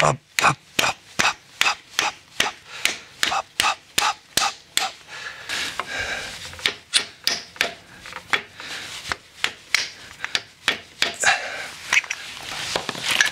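Rapid light hammer taps on a driver, seating a new radial shaft seal in a hydraulic motor's housing: about three taps a second at first, then slower, irregular taps.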